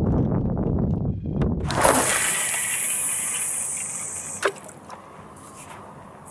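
Wind buffeting the microphone, then about two seconds in a sudden water-like splash and rush that fades away slowly over the next few seconds, with a couple of short sharp clicks as it dies down.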